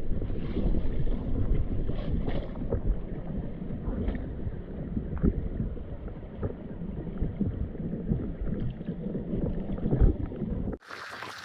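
Muffled rushing river water heard through a waterproof action-camera housing, with scattered knocks and bumps. Just before the end it cuts abruptly to a brighter, hissy water sound.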